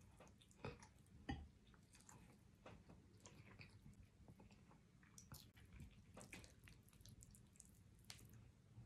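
Faint wet chewing and the small clicks and squishes of fingers pulling meat off cooked neck bones, with two sharper clicks about a second in.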